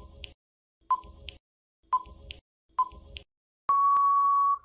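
Quiz countdown timer sound effect: four short electronic beeps about a second apart, then one long steady beep of just under a second marking time up.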